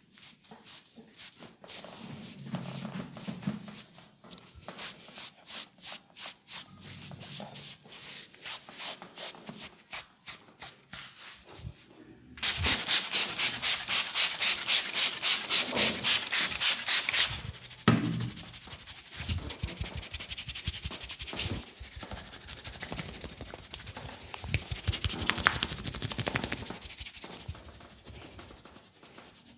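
Hands massaging a man's neck, face and scalp, the skin and hair rubbing in regular strokes. About twelve seconds in it turns suddenly louder and faster, a quick even run of rubbing strokes lasting about five seconds, then eases back to softer, uneven rubbing.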